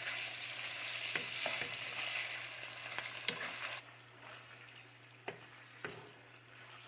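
Chopped chicken frying in hot oil in a pan, a steady sizzle with a spoon clicking against the pan as it is stirred. The sizzle drops away abruptly about halfway through, leaving only a few faint clicks.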